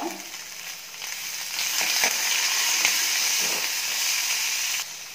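Sliced onions frying in oil in a metal kadai, sizzling as a ladle stirs them, with a few knocks of the ladle against the pan. The sizzle grows much louder about one and a half seconds in and cuts off suddenly near the end.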